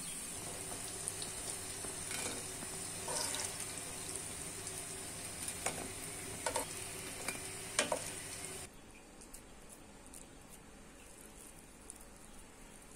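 Food sizzling in a hot pan, with a few utensil scrapes and knocks. The sizzle cuts off abruptly about nine seconds in, leaving only faint background noise.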